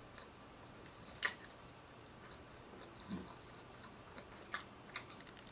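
A person chewing food close to the microphone: faint mouth clicks and smacks, the sharpest about a second in, with a few more near the end.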